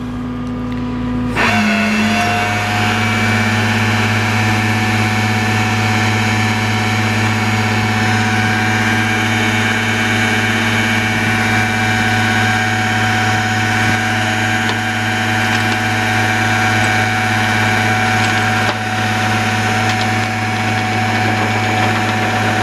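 Flatbed tow truck's winch reeling in its cable under power, with a steady loud hum and a whine above it that kick in about a second and a half in and then hold level.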